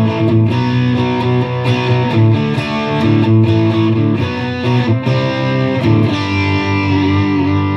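Electric guitar (a Fender Player Stratocaster) played through a Fender Mustang GTX100 modelling amp on a classic rock preset: strummed, ringing chords with frequent pick attacks.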